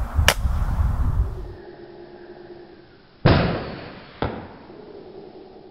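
Wind rumbling on the microphone with a sharp click, then an air rifle shot about three seconds in: a sudden report that fades over about a second, followed a second later by a smaller sharp crack.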